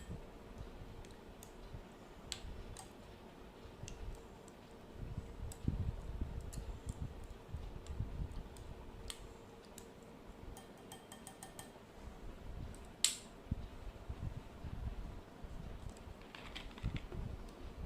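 Hands mixing and working slime, giving scattered small sticky clicks and taps over a low handling rumble, with one sharper click about two-thirds of the way through.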